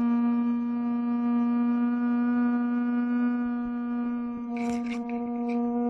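Small electric fan running close to the microphone: a steady hum with a stack of overtones. From about four and a half seconds in, short rustling noises sound over it.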